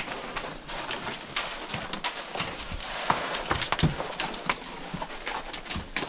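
Horses' hooves walking over loose rock and gravel, an irregular clatter of hoof strikes on stones.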